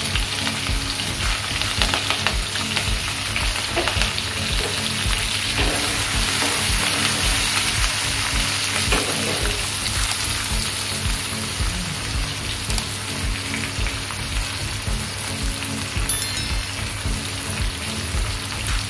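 Sliced onions and green chillies frying in hot oil in a steel kadai with mustard seeds and curry leaves: a steady sizzle.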